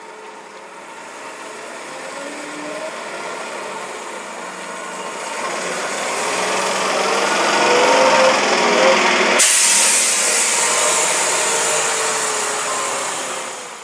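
Engine of an open-top Olympian double-decker bus pulling away and driving past, growing louder to a peak just past the middle, then fading as the bus moves off.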